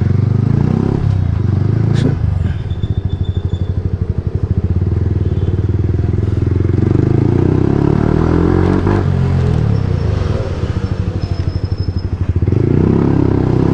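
Motorcycle engine running as it is ridden. It eases off the throttle about two seconds in and again near the end, and its pitch rises in between as it picks up speed.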